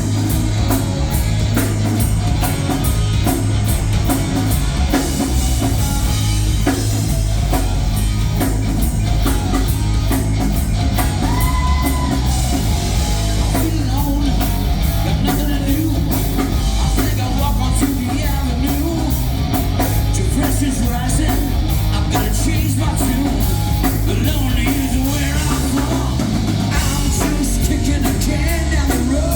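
Live rock band playing loudly, with a drum kit and a singer.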